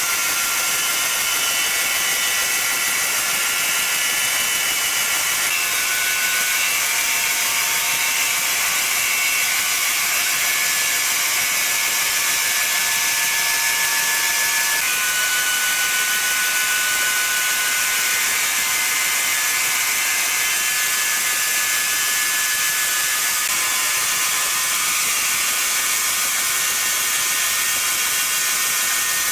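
Sawmill saw running steadily: a high, even whine with a few thin steady tones that change pitch about halfway through.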